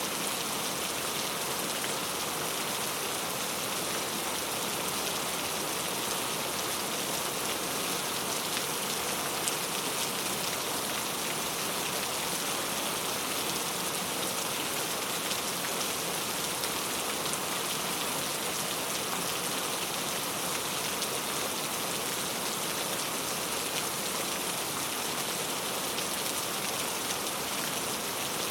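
Steady rain falling on hard surfaces: an even, unbroken hiss of many drops that holds at the same level throughout.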